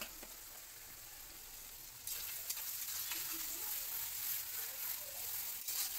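Sliced onions sizzling in hot oil in a large kadai. About two seconds in the sizzle gets louder as a spatula stirs them.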